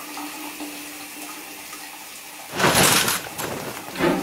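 Water running steadily from a shower, with a loud rushing surge about two and a half seconds in that fades over the next second.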